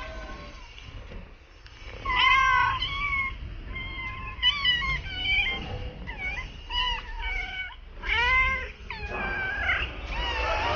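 Several stray cats meowing again and again, a string of short and drawn-out meows, some overlapping.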